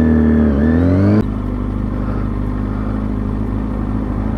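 Kawasaki ZX-6R 636 inline-four motorcycle engine with a pitch that dips and then climbs. About a second in it cuts off sharply to a steady, lower engine hum under rushing wind noise.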